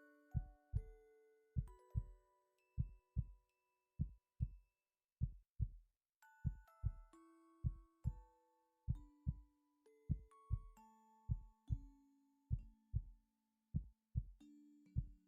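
A person's heartbeat: low, soft thumps in close lub-dub pairs, repeating steadily. Soft background music with slow held notes plays underneath.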